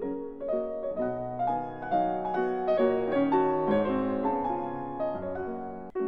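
Background piano music: a soft melody of single notes over sustained chords.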